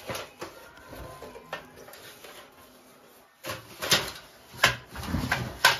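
Plastic-bagged amplifier circuit boards being handled over a cardboard box: crinkling bags and light clicks and knocks. It is sparse at first, then a quick run of louder rustles and knocks comes in the last two seconds or so.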